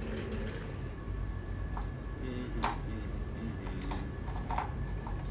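Scattered light clicks and taps of small objects being handled on a work surface, about half a dozen, the sharpest a little past halfway.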